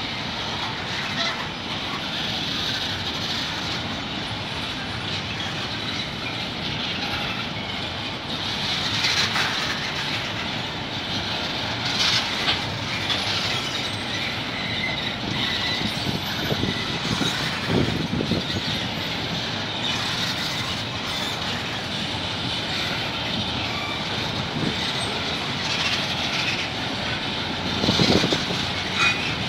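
Empty bauxite ore wagons of a freight train rolling by: a steady noise of steel wheels on rail, broken now and then by short louder clacks.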